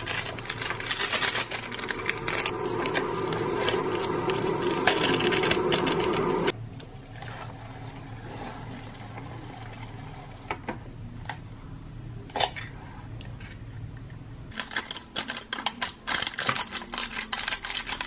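Instant cup ramen being made: the paper lid of the cup is peeled back, hot water is poured from an electric kettle into the paper cup, and seasoning sachets are torn and crinkled near the end in a run of quick, sharp crackles.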